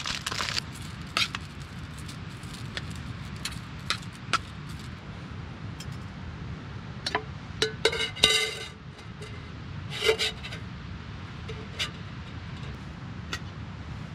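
Cookware being handled: a plastic bag crinkles at the very start, then come scattered clicks and knocks and a brief ringing metal scrape a little past the middle as a metal cooking pot is handled. A steady low rumble sits beneath it all.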